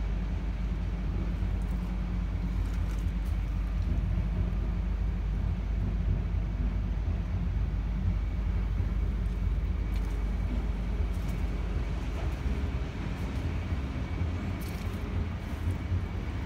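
Large diesel engine of an off-highway haul truck idling: a steady low rumble.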